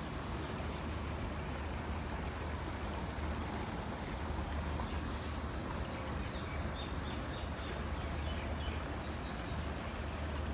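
Steady outdoor city ambience: a continuous low rumble under an even hiss, with a few faint high chirps from a small bird about five to six seconds in.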